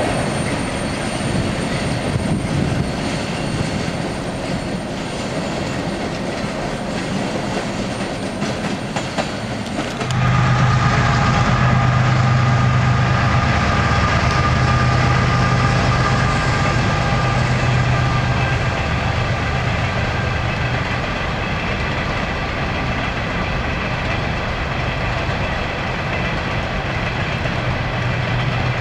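A CSX coal train: hopper cars rolling along the rails with wheel clatter. About ten seconds in the sound switches abruptly to a louder, steady diesel locomotive engine hum, which weakens after about 21 s and comes back near the end as the train rolls across a bridge.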